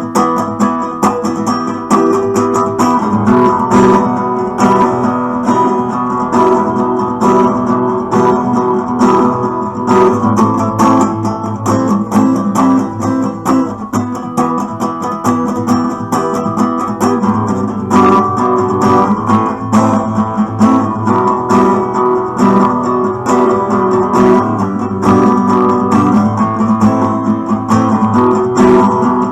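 Acoustic guitar strummed in a steady rhythm, chords played continuously.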